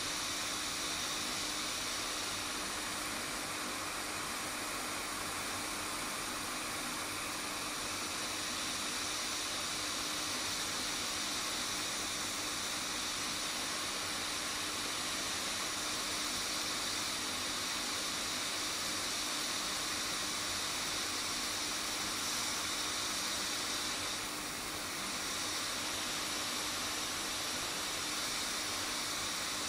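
Budget hot air rework station blowing a steady hiss of hot air onto a tablet's charging connector to melt its solder for desoldering. It dips briefly once, near the end.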